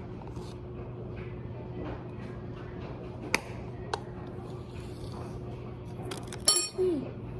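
A spoon clinking against a bowl while slime ingredients are added and mixed: a couple of light clicks midway and one louder ringing clink near the end, over a steady low hum.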